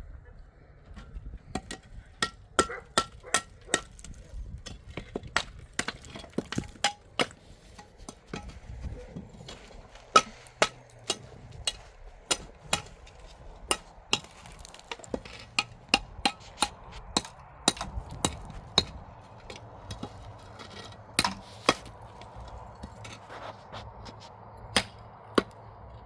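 Repeated sharp strikes, about two to three a second, in runs broken by short pauses.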